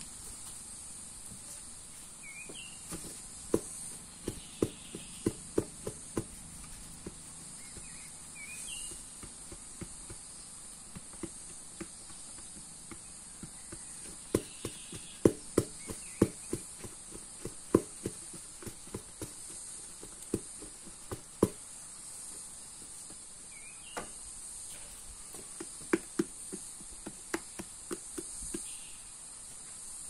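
A steady, high-pitched drone of insects, with runs of short, dull knocks coming two or three a second in several bursts.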